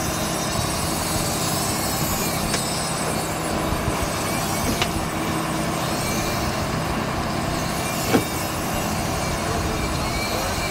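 Boat under way while trolling: its engine runs steadily under water rushing past the hull and churning in the wake, with a few short sharp knocks, the loudest about eight seconds in.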